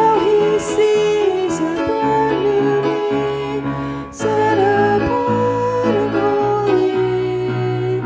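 Hymn music: a slow melody of long held notes, with a short break about four seconds in, over steady instrumental accompaniment that includes strings.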